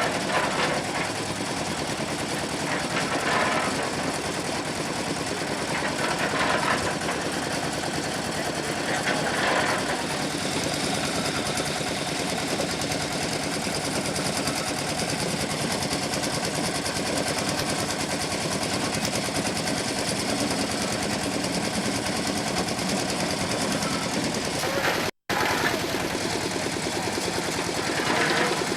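Construction machinery running steadily with a fast, even rattle, cutting out for an instant about 25 seconds in.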